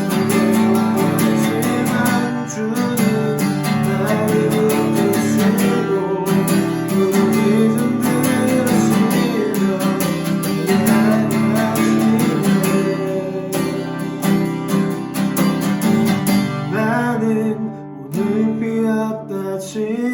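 Acoustic guitar strummed steadily, accompanying a worship song, with a voice singing along at times.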